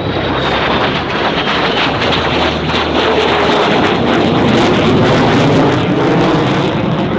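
Lockheed Martin F-22 Raptor's twin Pratt & Whitney F119 turbofans, loud and continuous, with a crackling edge that peaks around the middle and then eases slightly.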